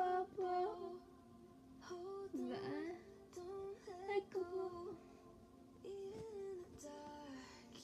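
A young girl singing softly in short melodic phrases, the words unclear.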